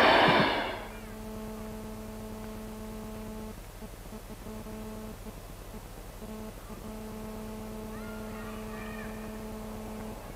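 A passing train's noise dies away within the first second. After that a steady low hum with a few overtones runs on, breaking off briefly a few times.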